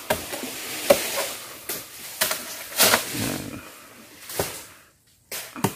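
Nipa palm fronds being cut and cleared with a blade: about five sharp chops at uneven intervals over rustling leaves.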